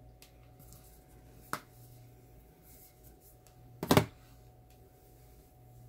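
Handling noise as a makeup palette is set down: a small click, then about four seconds in a short clatter of knocks, over a low steady hum.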